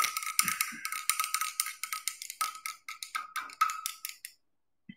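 Glass stirring rod clinking rapidly against the inside of a glass beaker with a ringing note, stirring black copper oxide powder into hot sulfuric acid to dissolve it; the clinking stops about four seconds in.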